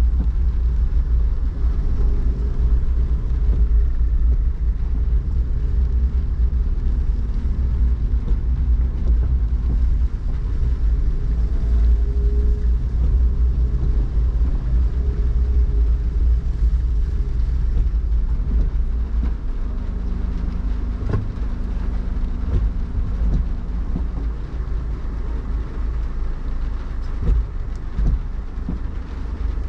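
Rainy city street ambience: a steady low rumble of traffic under a light hiss of rain, with a few short knocks near the end.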